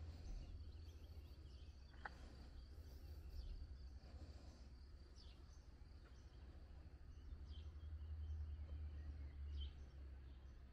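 Quiet outdoor ambience: a low steady rumble with a few faint, short bird chirps scattered through it.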